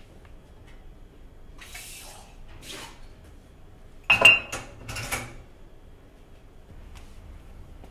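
Dishes and cutlery being handled: two soft scrapes, then a sharp clatter with a ringing clink about four seconds in, followed by a few more clinks.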